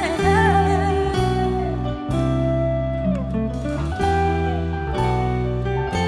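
Instrumental break in a pop ballad: a sustained lead guitar melody with slides and vibrato over bass and chords that change about once a second.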